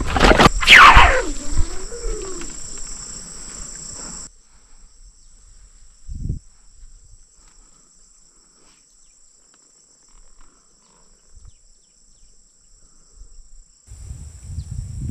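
Insects droning steadily at a high pitch in the background, after a brief loud falling whoosh at the very start. Near the end, low water splashing as a hooked fish struggles at the surface.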